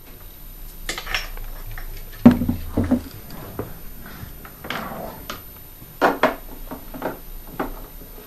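Irregular clinks and knocks of metal and hard plastic, as tools and parts are handled during the fuel tank repair, the two heaviest knocks about two and three seconds in.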